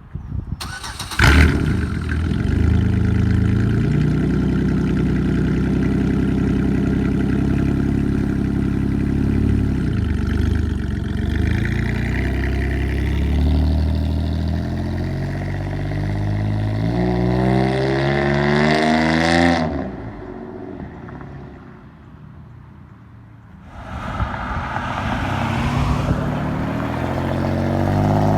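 Straight-piped 2005 Pontiac G6 exhaust: the engine fires up sharply about a second in and runs loud and steady, then its pitch climbs as the revs rise. It drops suddenly to a low level, then climbs again near the end.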